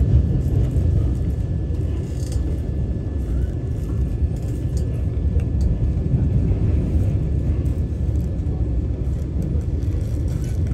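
Vande Bharat Express electric train running: a steady low rumble from the moving train and its wheels on the track, with a faint steady whine above it.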